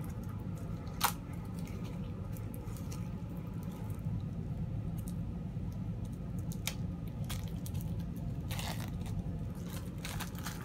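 The packaging of new decks of game cards being torn open by hand, with a sharp snap about a second in, a few lighter clicks, and a short crinkle near the end, over a steady low hum.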